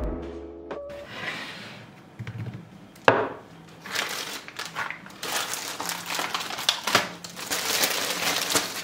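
Plastic food packaging crinkling and rustling as bags of wheat tortillas and arugula are handled on a wooden cutting board, busier in the second half. A single sharp knock comes about three seconds in.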